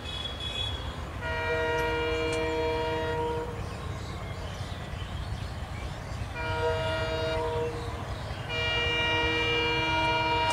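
WDM3A diesel locomotive sounding its multi-note air horn three times as it approaches. The first blast lasts about two seconds, the second is shorter, and the third starts near the end, all over a steady low rumble.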